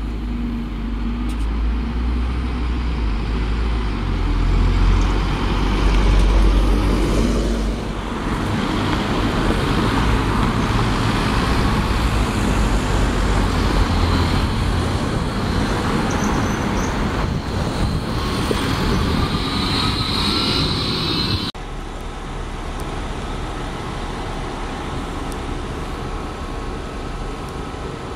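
Road traffic in three shots. First, a double-decker bus's engine runs with a deep rumble as it approaches. Then general town traffic, where a small single-decker bus pulls away with a rising whine. After a sudden cut there is a quieter, steady hum as a tram approaches.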